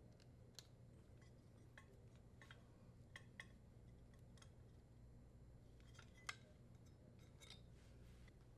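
Near silence with a few faint, short clicks, the clearest a pair about three seconds in and one a little after six seconds: small handling noises from joining the dishwasher power cord's wires with a plastic wire nut.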